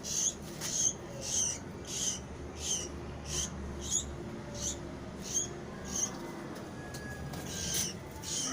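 Baby swiftlet chirping: short, high-pitched cheeps repeated about every two-thirds of a second, with a short gap near the end.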